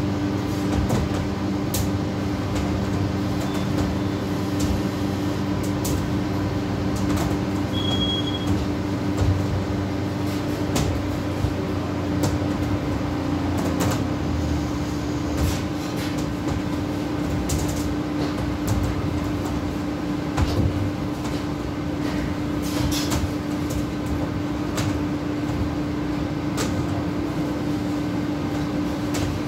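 Steady mechanical hum of commercial kitchen equipment, with scattered clanks and knocks.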